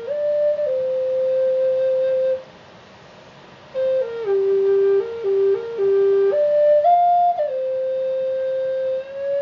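Solo flute playing a slow melody of held notes with quick ornamental turns, breaking off for about a second and a half a little over two seconds in before the melody resumes.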